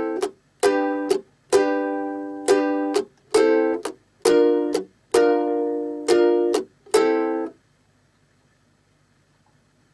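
Ukulele in standard tuning strummed at a slow pace through G and B-flat chords, the ringing cut short again and again by muted strums. The last chord is damped about seven and a half seconds in, leaving only a faint low hum.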